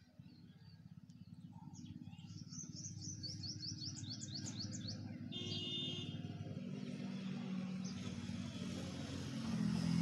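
A small bird gives a fast run of high, falling chirps, about four or five a second, followed by a short buzzy call. Underneath is a steady low rumble of distant background noise that grows louder through the second half.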